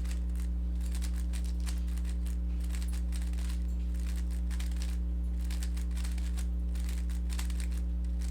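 Rubik's cube being turned fast: rapid plastic clicking and clacking of the layers in quick runs with short pauses, over a steady electrical hum.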